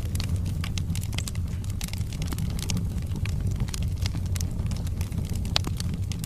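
Wood fire burning in a fireplace: a steady low rumble of flames with frequent irregular crackles and pops of burning logs, one sharper pop near the end.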